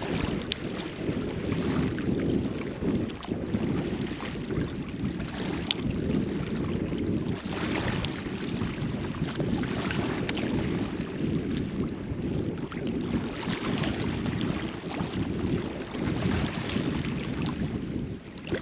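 Wind buffeting the microphone at the seashore, a rough steady rumble, with the wash of surf swelling every few seconds underneath.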